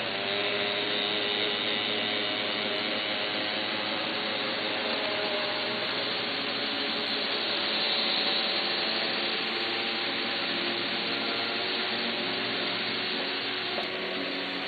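Steady whirring of N gauge model trains running, their small electric motors giving faint whines over the rumble of wheels on track.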